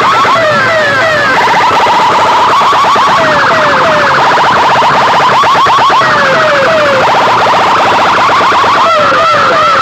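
Electronic siren and alarm effects blasted very loud through DJ sound-system speakers, several patterns overlapping. Rapid rising chirps repeat many times a second, cut across by sets of three falling sweeps.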